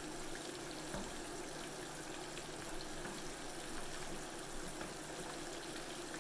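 Breaded chicken thigh deep-frying in a pot of hot canola oil: a steady sizzle with fine crackling, over a low steady hum.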